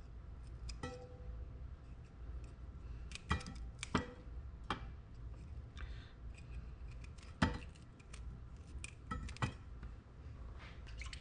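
Broccoli florets being snapped off the stalk by hand and dropped into a stainless steel steamer basket: about seven sharp, crisp snaps and clinks, spaced irregularly a second or more apart, the first with a short metallic ring.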